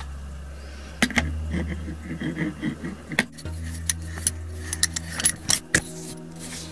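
Metal clicks and clinks of a SLIK ball head being set on and screwed onto a Gitzo Cremaillere 3 tripod's top plate: several sharp taps, most of them in the second half.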